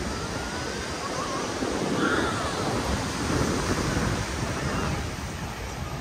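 Ocean surf washing on a sandy beach, with wind buffeting the microphone.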